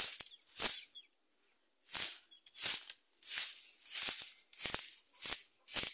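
Shaker in background music, shaking hissy strokes in an even rhythm of about three every two seconds, with a short pause about a second in.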